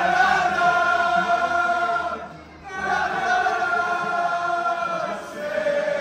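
Crowd of Manchester City supporters singing a football chant together, with long held notes in two phrases and a short break about two seconds in.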